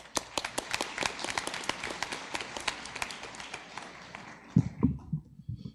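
Audience applauding, with many overlapping claps that die away about four and a half seconds in. A few low thumps follow near the end.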